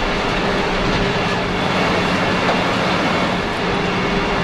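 A large fire burning through a building under construction: a steady loud noise with a low steady hum underneath.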